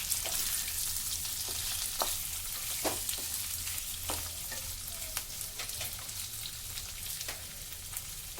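Boiled potato pieces sizzling in hot oil in a pan while being stirred slowly, with a sharp click of the stirring utensil against the pan every second or so.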